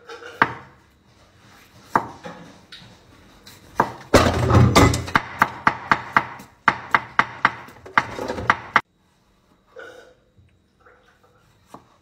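Kitchen knife chopping a cucumber on a wooden cutting board: a few separate chops, then a quick run of about three chops a second that stops abruptly.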